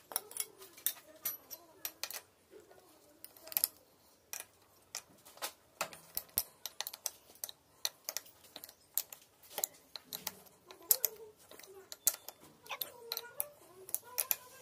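Steel open-end spanner clicking and tapping on the knife-clamping bolts of a wood planer's cutter block as the blades are set: a string of irregular, sharp metal clicks.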